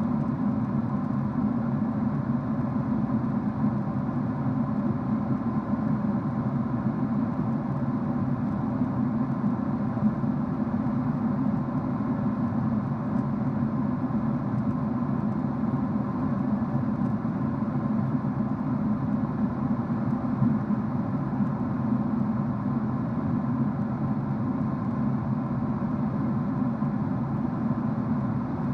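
Steady drone of a jet airliner's cabin in cruise: engine and rushing-air noise, heavy in the low hum, with faint steady tones above it.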